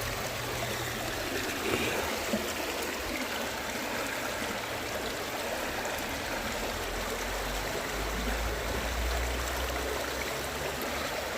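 Steady rushing of a flowing stream, with a low rumble for a couple of seconds past the middle.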